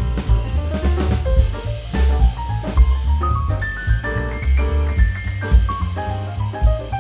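Jazzy background music with a drum kit keeping a steady beat over a bass line and melody.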